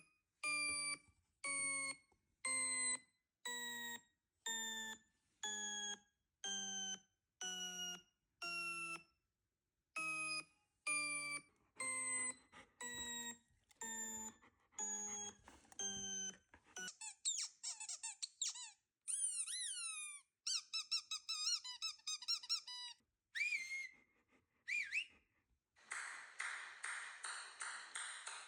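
A string of short, buzzy honking tones, about one a second, each sliding slightly down in pitch. They are followed by fast, high, warbling squeaks and then a dense buzzing clatter. These are novelty sound effects played as annoying sounds.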